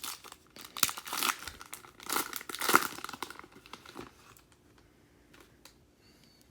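Wrapper of a 2018 Panini Select football card pack crinkling and tearing as it is opened, in crackly bursts for about four seconds, then falling quiet with a few faint ticks.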